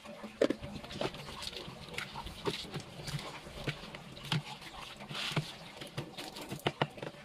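Hands rubbing and turning salted fish pieces in a plastic basin: irregular wet squelches and light knocks of the fish against the basin.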